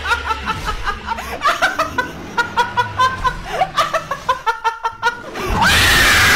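Rapid, high-pitched laughing in a bathtub, then about five and a half seconds in a loud shriek over heavy splashing of bathwater.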